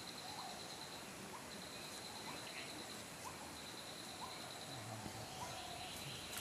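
Outdoor ambience: an insect trills steadily at a high pitch, stopping briefly now and then, while a bird gives short rising calls about once a second.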